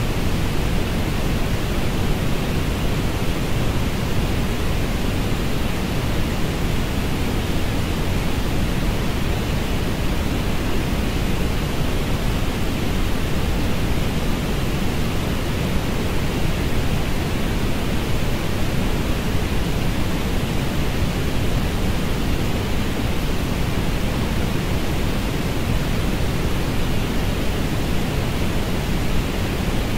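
Synthetic orange noise: a steady, unbroken hiss, heaviest in the bass and thinner toward the top.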